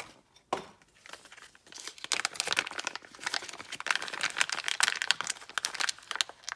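Clear plastic bag and packaging crinkling and rustling as they are handled and opened, with a dense run of crackles from about a second and a half in.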